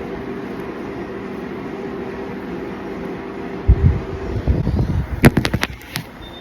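Steady room hum with a held low tone. Near the end come a few low knocks, then a quick run of five or so sharp clicks, like something being handled close to the microphone.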